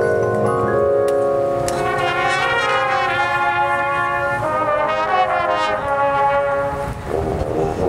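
High school marching band playing its field show, the brass section holding full sustained chords that change every second or two; the sound thins briefly about seven seconds in.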